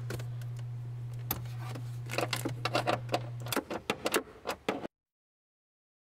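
Small metallic clicks and rattles from a hand tool loosening a 7mm bolt under the dashboard, starting about two seconds in over a steady low hum, then the sound cuts off abruptly.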